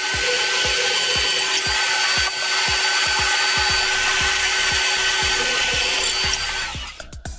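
Bosch bench drill press running, its bit drilling into a beech board with a steady motor whine, then switching off near the end.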